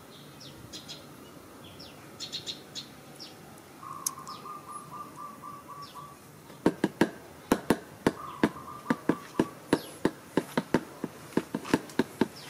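Small birds chirping, with a fast trill of repeated notes heard twice. From about the middle onward, sharp clicks or taps come a few times a second and are the loudest sound.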